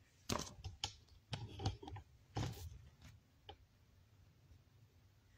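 Faint handling noise as a phone is moved and paper is handled: a scattering of soft clicks and light knocks, mostly in the first three seconds.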